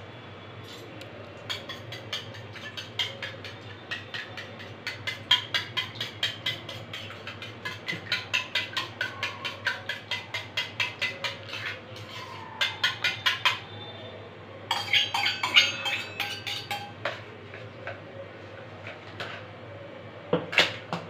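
A steel spoon beating eggs in a small steel bowl, clinking against the side in quick, even strokes of about three a second, with a thicker flurry of clinks partway through. A single sharper knock comes near the end.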